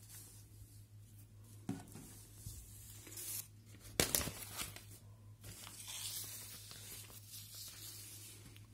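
Paper rustling as a notebook page is turned over, with a sharp tap about four seconds in and a faint steady hum underneath.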